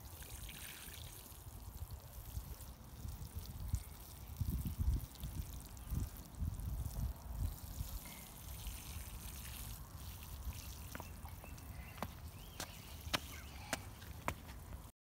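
Water sprinkling from a plastic watering can's rose onto soil, a steady patter, with low rumbles underneath. A few sharp clicks come near the end, and the sound cuts off suddenly.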